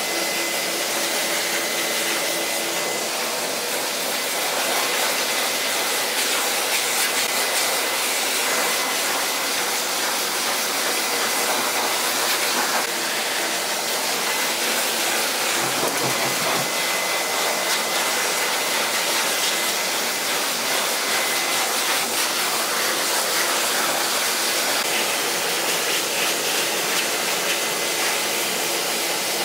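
Pet-grooming blow dryer blowing a steady rush of air through its hose and nozzle, run over a dog's wet coat.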